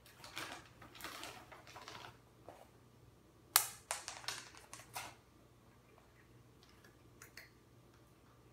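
A cat scuffling and pouncing on a hard floor while chasing a treat: soft rustling scrapes and clicks, then a sharp click about three and a half seconds in, the loudest, followed by a quick run of clicks.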